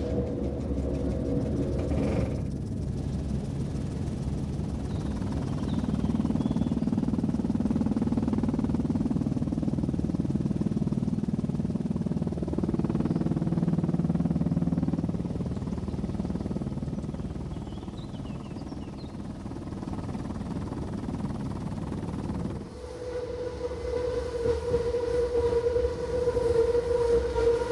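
Rhaetian Railway metre-gauge electric train running, a steady low rumble through most of it. About 23 seconds in, a strong steady pitched tone comes in over the rumble and holds.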